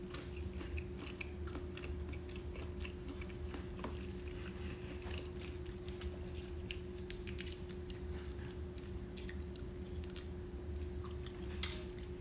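Close-miked chewing of boiled crawfish, with scattered small clicks and crackles of crawfish shells being cracked and peeled in gloved hands, over a steady low hum.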